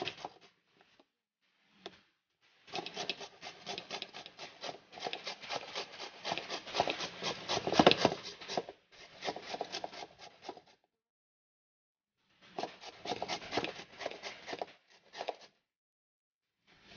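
Green papaya being grated by hand on a stainless steel grater over a metal bowl: quick rasping strokes in several runs, broken by pauses of one to two seconds.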